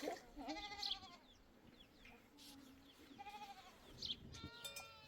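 Livestock in a flock bleating: three separate calls, the first shortly after the start, another past three seconds in, and a third near the end.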